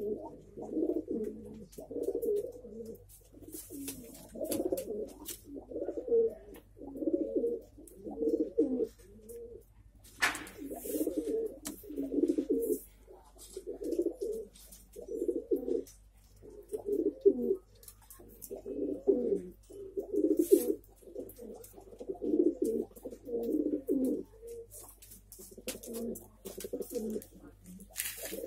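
Domestic pigeons cooing: a steady run of low coos, about one a second. A sharp click comes about ten seconds in.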